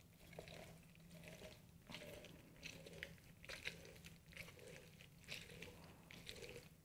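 An orange half twisted and pressed down onto a plastic hand citrus juicer: faint, uneven wet squishing and crunching of the pulp as the juice is squeezed out.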